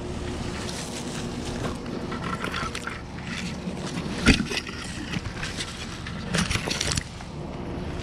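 Leaves and twigs rustling and crackling as a climber pushes through dense tree foliage, brushing against the helmet camera, with a sharp knock about four seconds in and a thicker burst of rustling near the end.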